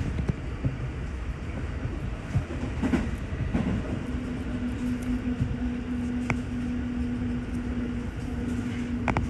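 A train running, heard from inside the passenger car: a steady low rumble of the wheels on the track with a few sharp clicks, joined about four seconds in by a steady hum.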